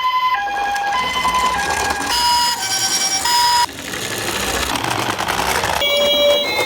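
Electronic two-tone ambulance sirens of the Japanese 'pee-po' kind, each switching between a higher and a lower note about twice a second, with sirens at different pitches overlapping. Past the middle they give way for about two seconds to a hissing, rattling noise, and a lower-pitched siren starts near the end.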